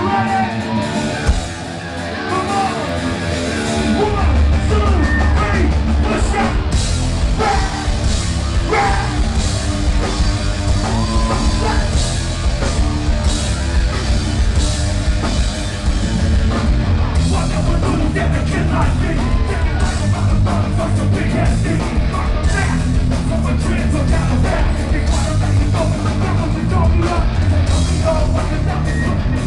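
Live rock band with electric guitars, bass and drums, a vocalist singing over it. The first few seconds are thinner, then the full band comes in much louder about four seconds in.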